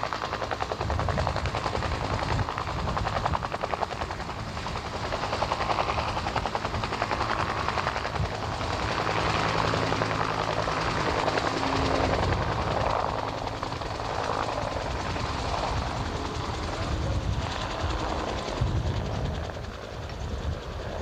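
UH-1 Huey helicopter running on the ground with its main rotor turning: a steady, loud engine-and-rotor noise with a rapid, even beat from the blades.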